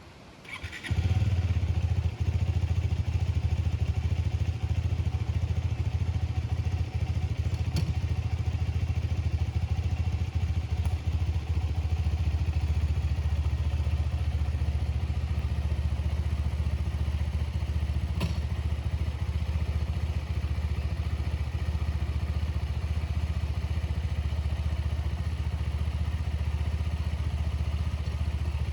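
Motorcycle engine starting: a brief crank, then it catches about a second in and runs at a steady, unchanging speed. Two faint clicks come through partway.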